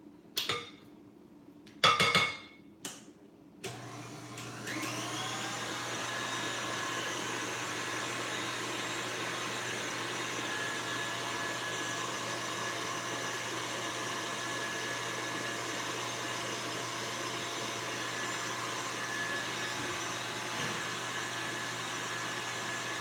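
A few clinks and scrapes of a spatula against a glass mixing bowl, then about four seconds in a KitchenAid Artisan stand mixer starts, comes up to speed within a second, and runs steadily, its wire whisk whipping coconut cream.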